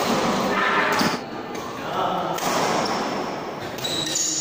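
Doubles badminton rally in a large hall: rackets striking the shuttlecock and players' shoes on the court, with a sharp hit about a second in.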